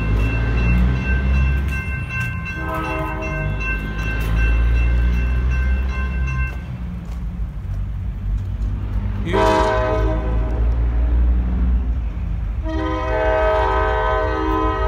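Diesel freight locomotive's multi-note air horn sounding for a grade crossing: a long blast, a shorter one about nine seconds in, and another long one starting near the end and still going, over a steady low rumble.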